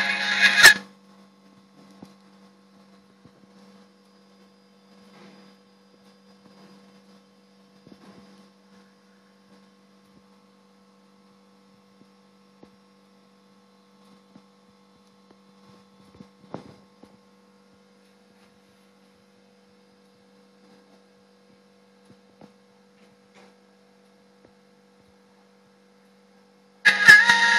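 Music from the phone's speaker cuts off within the first second, leaving a faint steady electrical hum with a few soft clicks. The music starts again near the end.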